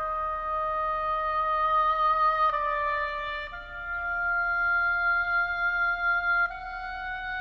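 Background film score: a slow melody on a wind instrument, long held notes changing pitch every one to three seconds.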